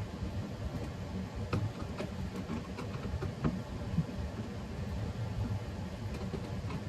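Steady low background hum with a few light clicks and taps, between about one and a half and four seconds in, from small door hardware being handled and fitted.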